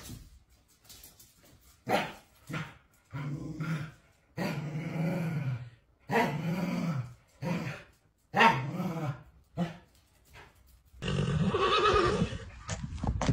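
A corgi gives a run of about nine short, pitched growling barks and grumbles, some brief and some drawn out over a second. Near the end a louder, rougher sound lasting about two seconds takes over.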